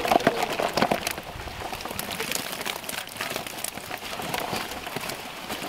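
Water running and dripping out of a mesh fishing keepnet as it is lifted and emptied into a weigh sling: a patter of many small drips and splashes, busiest in the first moment and then thinning out.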